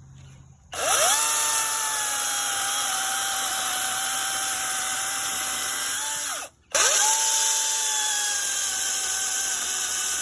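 EGO 16-inch 56-volt cordless battery chainsaw running: the electric motor and chain spin up with a quick rising whine and run at a steady pitch. It stops briefly about six seconds in, then spins up again and keeps running.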